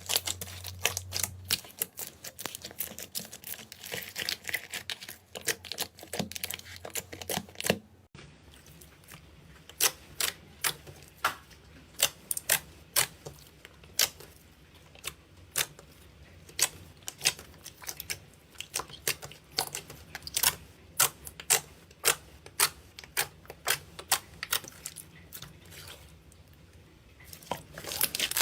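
Slime being squeezed and poked by hand, giving a run of sharp clicks and pops. The first part is a dense crackle; after about eight seconds the sound changes to separate wet pops, about one or two a second.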